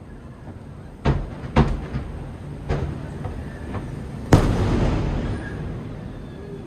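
Aerial fireworks shells bursting: a few sharp bangs between one and three seconds in, then the loudest bang about four and a half seconds in, followed by a rumble that fades over a second or two.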